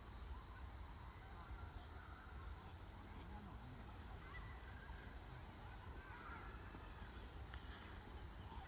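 Quiet outdoor ambience: faint distant voices over a steady high-pitched hum, with a low rumble underneath.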